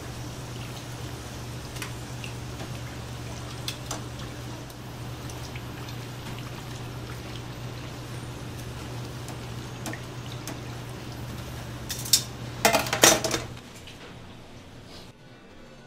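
Fish cakes sizzling in a deep fryer's hot oil over a steady low hum, with metal tongs clicking now and then as pieces are lifted into a wire mesh basket. A burst of louder clattering comes about twelve seconds in, and the sound then drops away.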